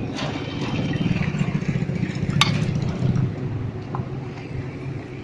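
A motor vehicle engine running close by, swelling and then easing off. A single sharp tap cuts through about two and a half seconds in, with a fainter one near four seconds.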